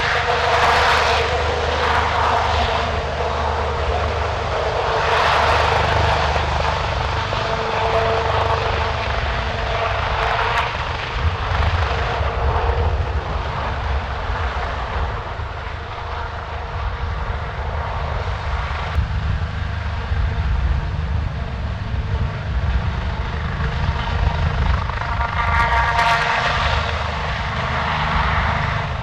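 Sikorsky S-97 Raider compound helicopter in flight: its coaxial rotors and pusher propeller run with a steady low beat and a pitched buzz. The sound swells louder several times as the aircraft passes, most strongly near the end.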